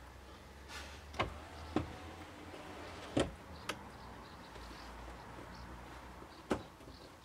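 About five sharp clicks and knocks, the loudest about three seconds in, from a cardboard template being handled and clipped onto a car's rear side window.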